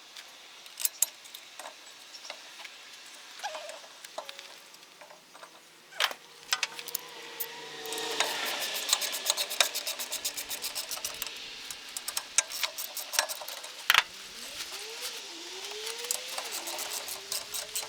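Ratchet wrench clicking in quick runs as the brake caliper's mounting bolts are run in, with a few sharp metallic knocks of the caliper and tools.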